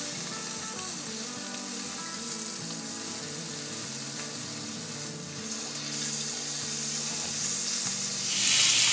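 Slices of pork jowl (Matsusaka pork) sizzling in hot oil in a frying pan, pressed flat under a cast-iron steak press. The sizzle gets louder near the end as the press comes off and the pieces are turned with tongs.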